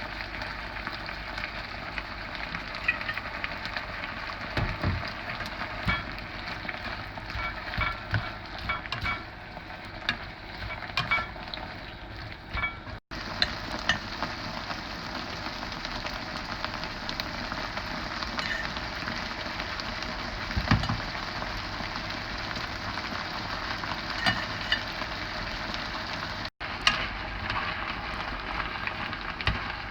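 Instant noodles stir-frying in a hot pan: a steady sizzle with a spatula scraping and tapping against the pan. The sound drops out for an instant twice.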